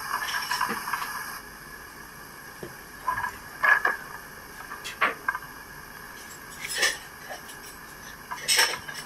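Plastic DVD case being handled: a series of sharp clicks and clacks, several clustered together about three to four seconds in and again near the end.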